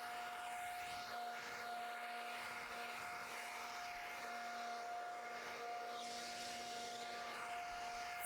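Electric power sander's motor running steadily, a constant whine over a noisy hum, as it sands pine boards with coarse 50-grit paper. A sharp click at the very end.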